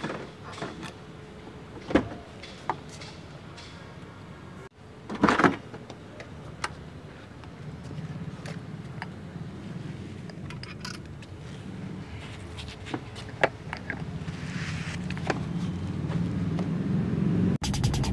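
Car door handle clicking as the door is opened, then a loud door slam about five seconds in, with scattered knocks and clicks from inside the car. After that the car's low engine and road hum rise steadily as it drives off.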